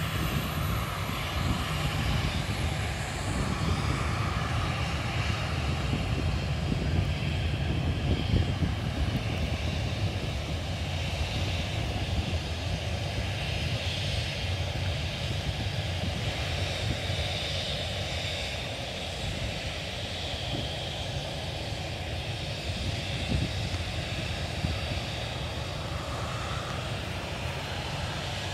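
Boeing 737 airliner's jet engines running at low taxi thrust as it turns at the runway end to line up: a steady engine rumble with a faint high whine over it.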